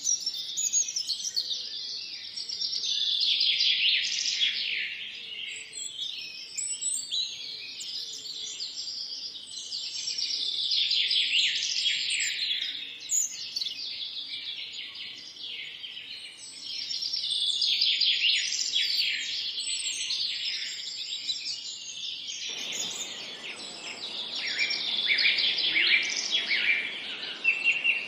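Many songbirds singing at once in a forest, a dense mix of high chirps, trills and whistles that swells and fades in waves. About three-quarters of the way through, a faint steady hiss comes in underneath.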